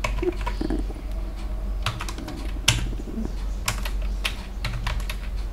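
Computer keyboard being typed on: irregular key clicks, spaced unevenly, over a steady low hum.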